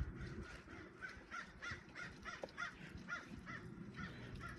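Rubber primer bulb on a string trimmer's carburetor being pumped rapidly, squeaking in a regular series about three times a second as it draws fuel up a bone-dry fuel line.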